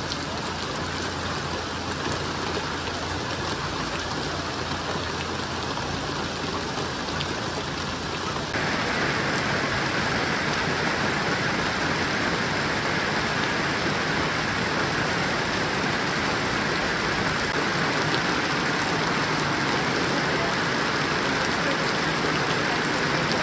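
Rain pouring down in a steady hiss. It turns louder about eight seconds in.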